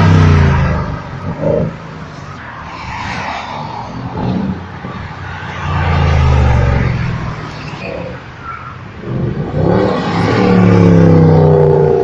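Performance cars, among them a Mercedes-AMG C63 coupé, accelerating hard past one after another with loud engine revs. There are three loud passes: at the start, about six seconds in, and the longest around ten to twelve seconds in, where the engine note climbs as the car pulls away.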